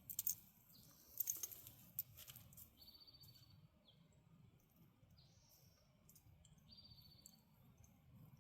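Quiet outdoor stillness with a few sharp clicks in the first two seconds or so, then a bird's long, flat, buzzy notes repeating about every two seconds, each at a slightly different pitch.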